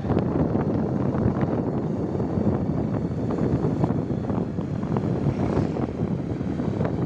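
Steady wind rush and buffeting on the microphone of a moving motorcycle, with the bike's running and road noise underneath.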